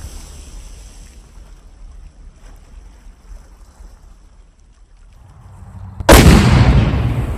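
Tannerite exploding when shot: one sudden, very loud blast about six seconds in, its deep rumble dying away over the next second or so. Before it, the fading low rumble of an earlier blast.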